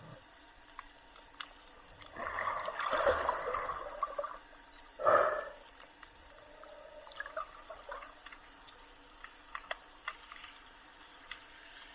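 Seawater sloshing and gurgling around the camera in shallow sea: a longer rush of water about two seconds in and a brief splash a little later, with faint scattered clicks.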